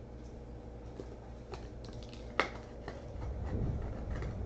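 Hands handling trading cards at a desk: light scattered clicks and taps, with one sharper click about two and a half seconds in and a low rumble of movement in the last second or so.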